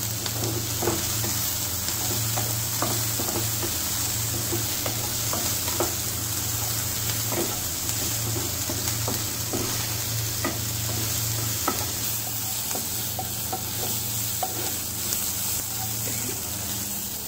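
Onion, chilli and tomato sizzling in hot oil in a kadhai, stirred with a wooden spatula that scrapes and knocks against the pan every second or so, over a steady low hum.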